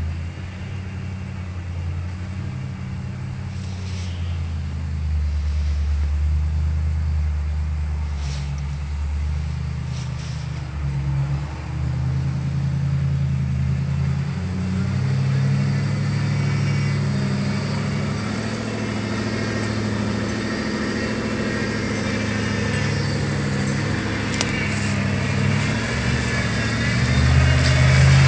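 Modified 4x4 mud truck's engine running at low revs, its note wavering as the throttle changes, then revving up louder near the end.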